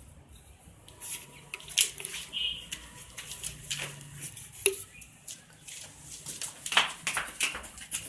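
Irregular scraping and clicking of a bottle cap being worked at with a tool to make a hole in it, with a few sharper clicks.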